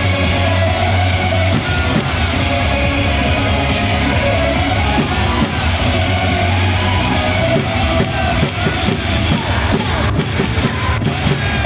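A cheer song blares over loudspeakers with a rock backing and a heavy, steady beat, while fans sing and shout along.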